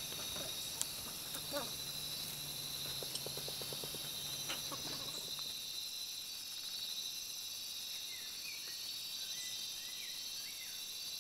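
Steady high-pitched chorus of insects buzzing, with a few faint bird chirps in the second half and some faint taps early on.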